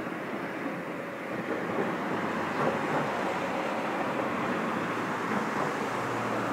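Steady road traffic noise: a vehicle passing, swelling a couple of seconds in and easing off near the end.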